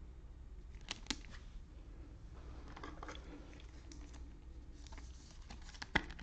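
Faint scattered light clicks and taps of desk handling, with a sharper click near the end, over a low steady room hum.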